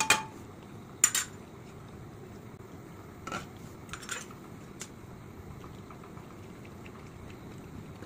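Steel spoon clinking against a stainless-steel food bowl: two loud clinks within the first second or so, then softer clinks around three to five seconds in, over a steady low background noise.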